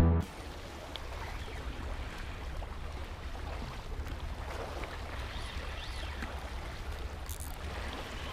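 Steady outdoor noise of sea water and wind against the microphone, an even hiss over a constant low rumble.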